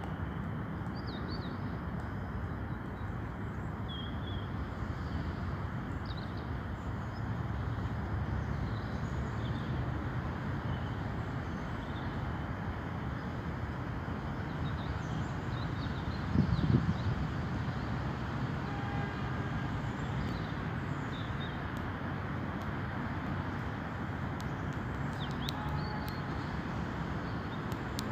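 Steady low rumbling outdoor noise with faint, scattered bird chirps, and a brief low thump a little past halfway.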